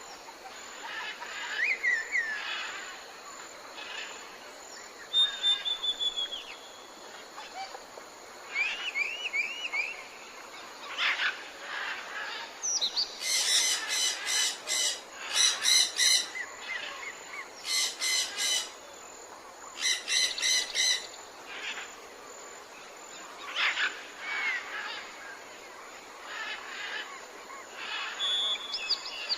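Jungle ambience of many birds calling: scattered chirps and short arched whistles over a steady hiss. Four bouts of rapid, buzzy pulsed calls come in the middle.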